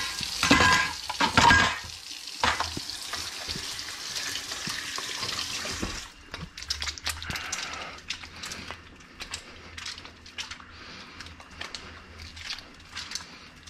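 Kitchen tap running into a stainless steel sink while a whisk and metal bowl are scrubbed with a brush and rinsed, with loud clatter of metal in the first two seconds. About six seconds in the water stops, and soft rubbing of soapy hands being washed follows.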